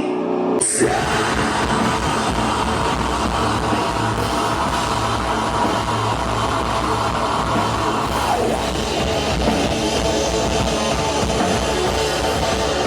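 Live hard-rock band playing an instrumental intro at full volume: distorted electric guitars, bass and drum kit, kicking in with a crash about half a second in.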